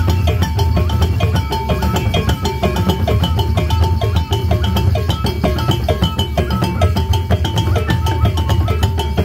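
Damba dance drumming: a fast, dense rhythm of drum strokes that goes on without a break.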